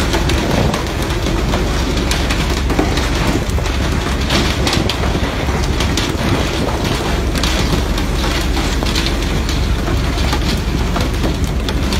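Steady rain-like hiss of a pole-and-line fishing boat's water sprayers showering the sea surface, over a steady low rumble, with frequent short sharp slaps and clicks as hooked fish hit the deck.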